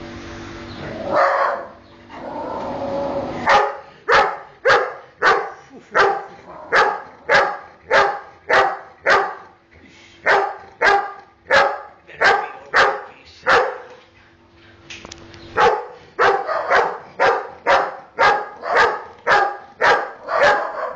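German shepherd dog barking over and over, about two barks a second, in three long runs with brief pauses between them; the barking starts a few seconds in.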